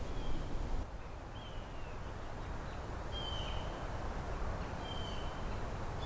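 Tree frogs calling: short, high calls that fall slightly, repeated every second or two, over a steady low outdoor rumble.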